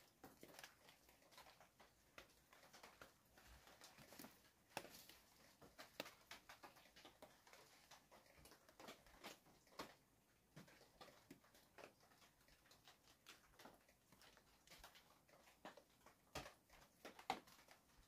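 Near silence with scattered faint, irregular clicks and rustles.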